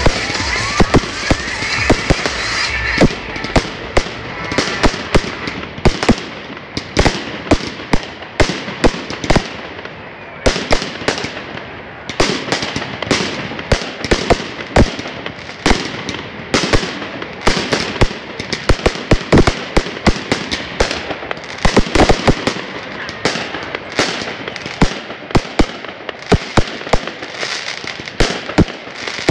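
Aerial fireworks going off in quick succession: sharp bangs several times a second from launching and bursting shells.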